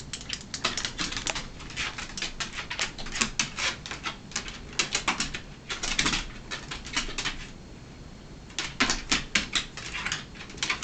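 Rapid, irregular clicking and scuffling of claws and paws as a Siamese cat and a dog scrap, with a brief lull about three-quarters of the way through.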